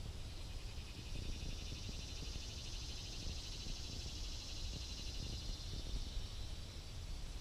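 An insect calling: a high, rapidly pulsing buzz that swells from about a second in and fades away near the end. Wind rumbles on the microphone underneath.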